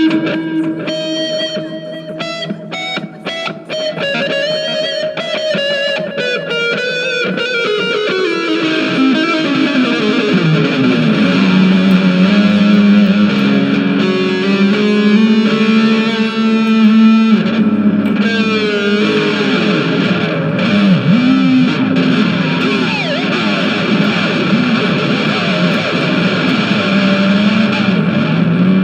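Electric guitar played through distortion and effects: held notes at first, then a long slide down in pitch, then dense playing with many note bends.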